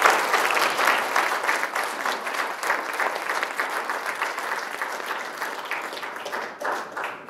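An audience clapping, loudest at the start and slowly dying away until it stops near the end.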